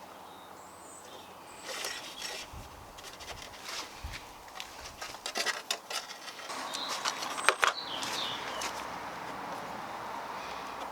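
Scattered small clicks, taps and rustling of hands working on car wiring, with a bird chirping faintly a couple of times.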